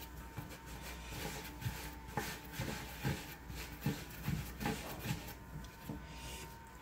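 Hands shaping a ball of sourdough dough on a floured wooden board: soft scuffs and dull pats as the dough is pushed and turned, coming several in quick succession from about two to five seconds in, over a faint steady hum.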